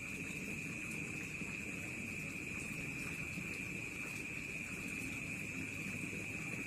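Crickets trilling without a break, a steady high-pitched buzz over faint background hiss.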